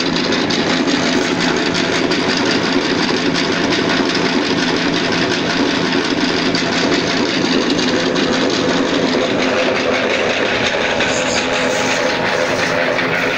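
Screw oil expeller running steadily while pressing sunflower seed: a constant machine drone from the drive and the turning press screw, with no change in speed.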